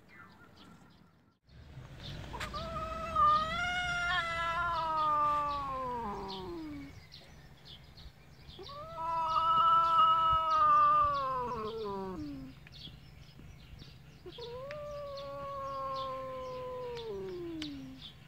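A cat yowling: three long, drawn-out caterwauls, each sliding down in pitch at its end, the last one quieter. These are the warning yowls of a cat facing a rival cat.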